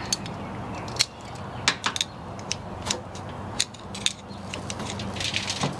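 Scattered sharp metallic clicks and clinks of tools and smoker parts being handled, about a dozen over a few seconds, over a low steady hum.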